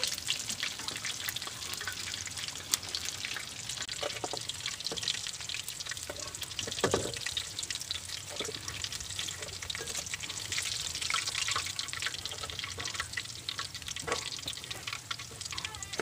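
Chicken pieces deep-frying in hot oil in a metal pan: a steady, dense sizzle and crackle, with a few scattered knocks, the loudest about seven seconds in.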